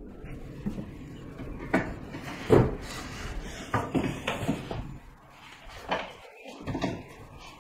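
A string of short knocks and bumps in a small room, the loudest about two and a half seconds in, like things being moved and set down and cupboard or drawer doors being handled.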